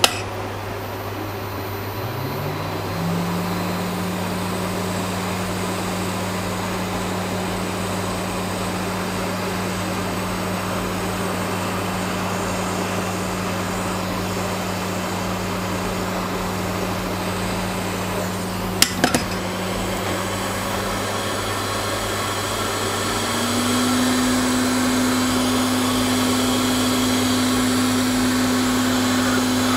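Hot air rework gun's blower spinning up about two seconds in, then running with a steady whir, stepping up to a higher pitch near the end. It is heating solder balls through a reballing stencil.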